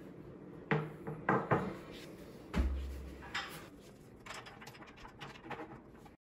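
Wooden top panel of a metal dog crate being set onto the frame: a few light knocks, then one heavier thump about two and a half seconds in as it lands, followed by softer scraping and small clicks as it is shifted into place.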